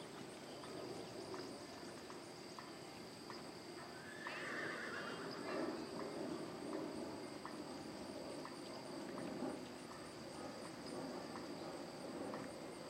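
A horse whinnying once, about four seconds in and lasting a second or so, over faint hoofbeats on arena sand.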